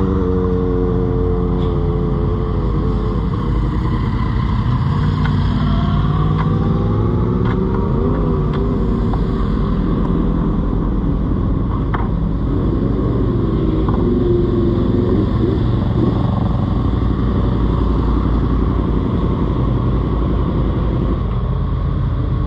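Sport motorcycles running in a pit lane: a steady close engine idle under the engines of other bikes that rev up and fall back as they ride off one after another.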